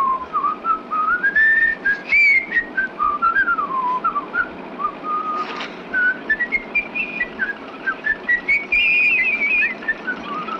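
A tune whistled through pursed lips: one melody line of short notes and quick slides up and down, over a steady background hiss.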